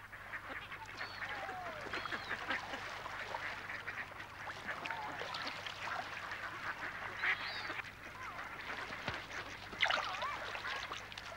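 A flock of mallard ducks calling on a pond: many short, overlapping quacks and calls, with no single call standing out for long.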